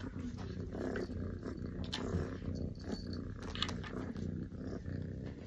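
Kitten purring steadily as it chews and licks a wall-mounted catnip ball toy, with scattered sharp clicks as it bites at the toy.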